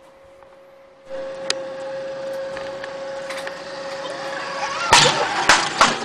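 Zip line trolley running along the steel cable, a steady rushing noise that starts about a second in and slowly grows louder. A few sharp loud knocks come near the end.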